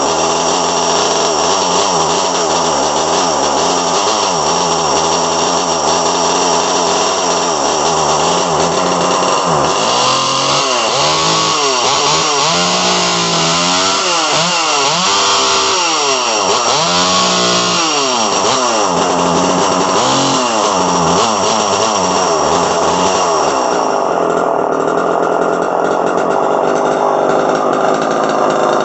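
Homelite Super EZ Automatic two-stroke chainsaw running: steady at first, then revved up and down over and over through the middle, then held steadier near the end. The owner thinks it could use a new spark plug or a carburetor adjustment.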